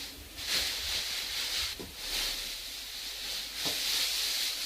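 Steady hiss of room tone with a few faint dull knocks, about half a second, two seconds and almost four seconds in.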